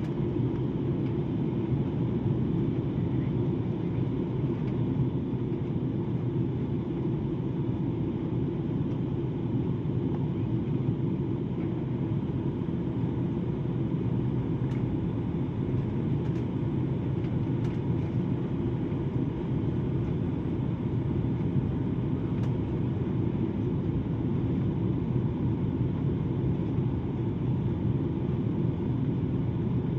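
Steady low drone of a Lion Air airliner heard from inside the passenger cabin: engine and airflow noise holding even throughout.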